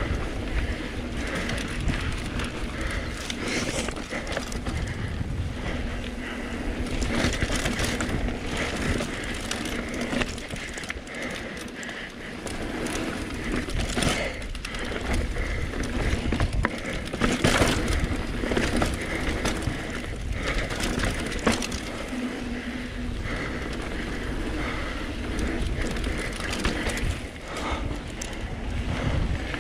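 Mountain bike descending rough singletrack: continuous tyre and ride noise with irregular clatters and knocks from the bike over bumps and landings.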